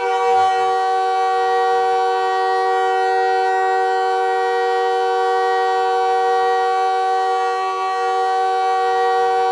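The Montreal Canadiens' goal horn sounds one long, steady blast of several tones together, signalling a home-team goal.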